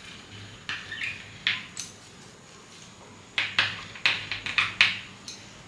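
Tracing wheel run in short scratching strokes over paper and carbon paper to mark pattern notches. A few strokes come early, then a quicker run of about eight more starting about three and a half seconds in.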